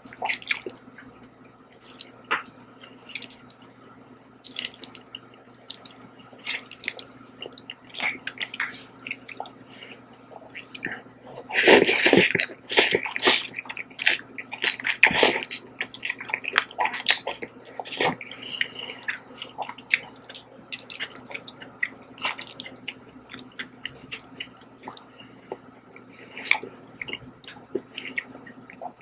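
Close-miked eating of jajang (black bean sauce) noodles: wet chewing and lip-smacking clicks throughout, with loud slurps of noodles about twelve and fifteen seconds in. A faint steady hum runs underneath.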